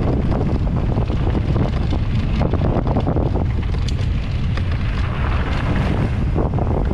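Wind rushing over the camera microphone of a moving mountain bike, with a steady low rumble from the tyres on a dry dirt singletrack and scattered small clicks and rattles.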